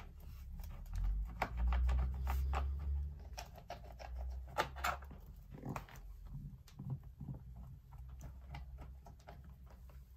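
A screwdriver undoing small screws in a laptop's base cover: scattered light clicks and ticks, over a low rumble that is strongest from about one to three seconds in.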